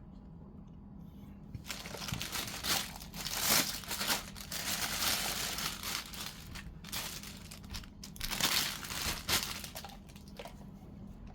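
Packaging crinkling and rustling in uneven bursts for about eight seconds, starting about two seconds in, as the power strip is unwrapped and taken out.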